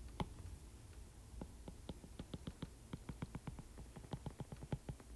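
Stylus tip tapping on a tablet's glass screen while drawing a dashed line: faint, sharp ticks, one at the start and then a quick irregular run of several a second.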